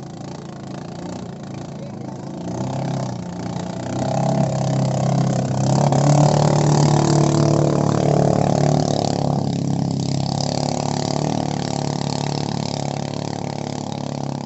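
Small speedboat's engine running at speed as the boat passes, its steady drone growing louder to a peak about six seconds in and then slowly fading as it moves away. A rushing hiss of water or wind rises with it near the loudest point.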